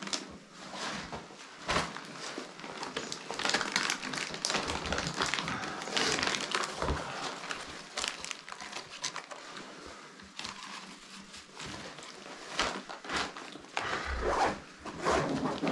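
Rustling and crinkling of a backpack and a plastic hydration bladder being handled and packed, with scattered small clicks and knocks, inside a small stone hut.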